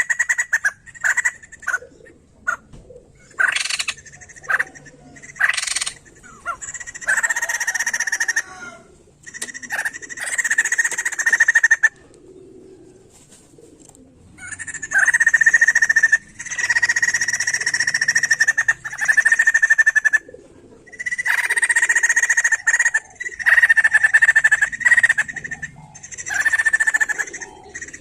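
White-crested laughingthrush (poksay jambul) calling in loud, repeated phrases that last from a fraction of a second to several seconds, with short pauses between them.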